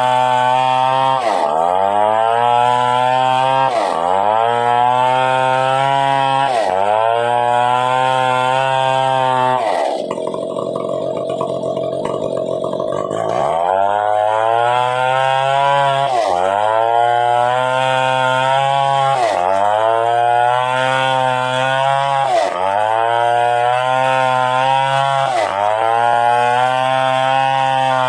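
Stihl 070 two-stroke chainsaw running hard under load. Its engine note dips sharply and climbs back about every two and a half seconds as it works through the cut. For about three seconds in the middle it settles to a lower, steadier note.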